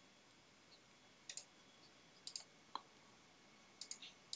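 Several faint, short computer mouse clicks, scattered through an otherwise quiet stretch.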